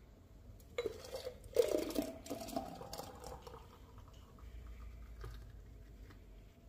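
Kitchen glassware and utensils clinking and knocking: one knock about a second in, a short run of clinks around two seconds, then quieter handling.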